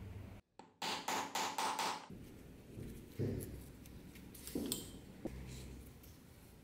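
A quick run of about five sharp, ringing taps, then two softer single knocks a couple of seconds later.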